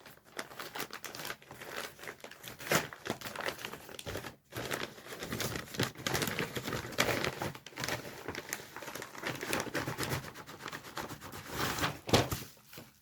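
Wrapping paper being torn and crumpled as a present is unwrapped: a dense run of crackling rustles with a brief pause about four seconds in.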